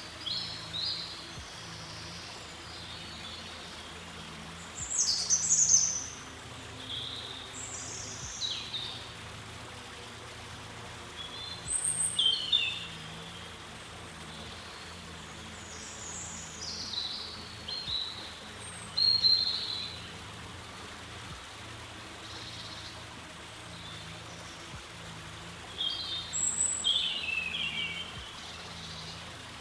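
Songbirds singing in short, separate phrases of quick high falling notes, about six times with pauses between, over a steady low hum.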